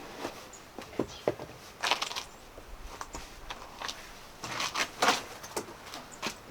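Irregular clicks, knocks and short rustles, like things being handled and moved about.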